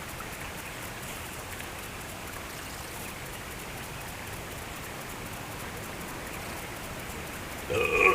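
Steady hiss of rushing water. Near the end, a short, louder pitched sound cuts through it.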